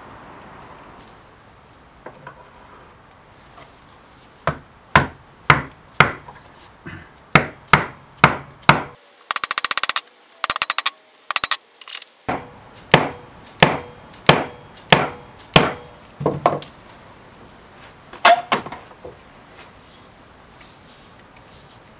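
A series of sharp wooden knocks, roughly two a second, as a drawknife's wooden handle with a copper ferrule is tapped down and seated on the workbench. A brief rapid rattle comes partway through, and two last knocks follow after a pause.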